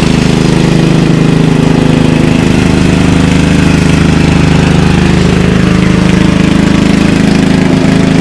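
Gas lawn mower engine running loud and steady while cutting long, overgrown grass.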